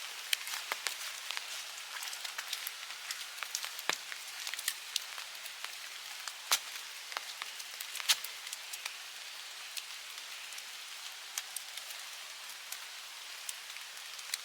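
Raindrops falling steadily: a fine even hiss with many irregular sharp drop hits, a few of them louder.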